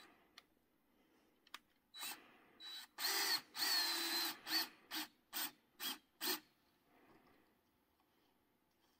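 Cordless drill running in short spurts while tightening a loose electric-fence wire: two brief runs, a longer run of about a second with a wavering whine, then five quick blips about half a second apart.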